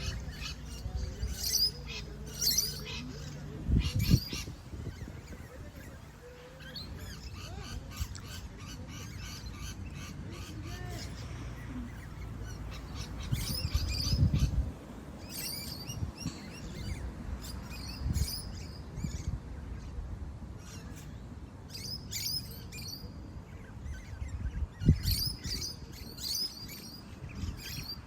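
Many small birds chirping and calling, the short chirps overlapping throughout. A few low rumbles swell up now and then, loudest about four, fourteen and twenty-five seconds in.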